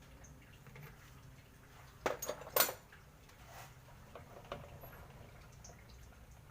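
Metal tools or parts clinking and clattering as they are handled, a short burst of knocks about two seconds in and a few fainter ones after, over a faint low hum.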